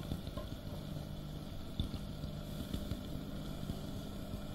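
Steady low electrical hum with faint background noise and a few soft knocks.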